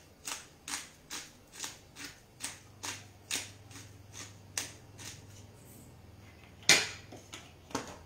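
Hand-twisted pepper mill grinding black pepper, its mechanism clicking about twice a second with each twist, the clicks fading after about five seconds. Two louder knocks follow near the end.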